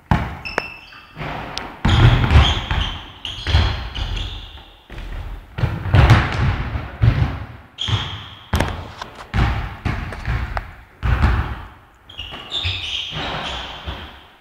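Basketball being dribbled on a hard court, a steady run of bouncing thumps a little over one a second.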